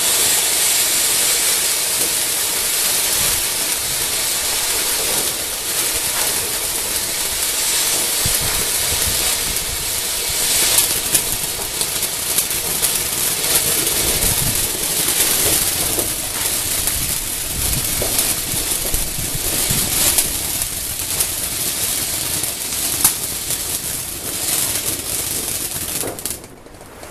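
Weco Laser ground firework fountain spraying sparks with a steady loud hiss and a few sharp crackles, cutting off near the end as it burns out.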